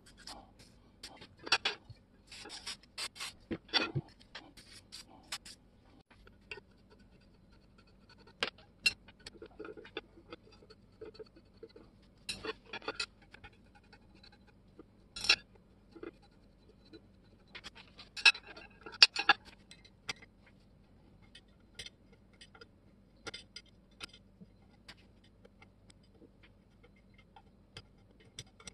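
Screwdrivers and small metal parts scraping and clicking against an antique cast iron level and a ceramic tray as the level is taken apart: scattered short clicks and scrapes with quiet gaps between.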